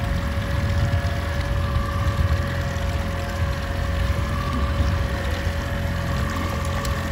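Fishing boat's motor running steadily at slow trolling speed: a constant low hum with no change in pitch.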